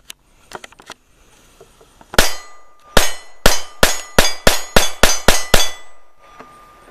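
Semi-automatic pistol fired about ten times: one shot, then after a short pause a rapid string of nine, with a struck steel gong target ringing on after the hits.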